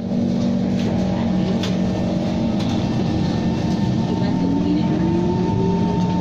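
SMRT C151 metro train running, with a steady electric hum and a whine that rises in pitch about halfway through as the traction motors pick up speed.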